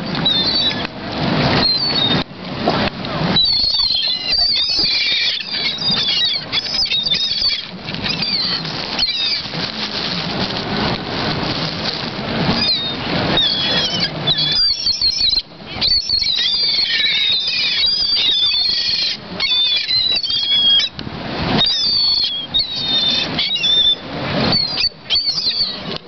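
A flock of gulls calling close overhead: many short, high squealing calls overlapping one another, with wings flapping nearby.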